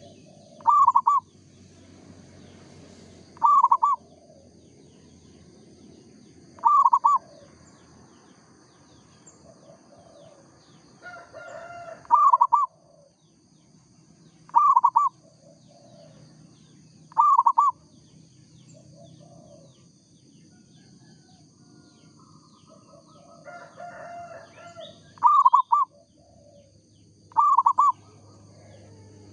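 Zebra dove (perkutut) cooing: about eight short, loud bursts of quick repeated notes, spaced a few seconds apart, with small birds chirping faintly behind.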